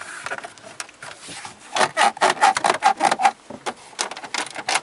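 Creaking panel, most likely a car's plastic dashboard trim: a run of short creaks and clicks, densest about two to three seconds in, with a squeaky tone through that stretch.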